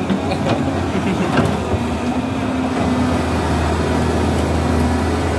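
Diesel engine of a Caterpillar tracked excavator running steadily.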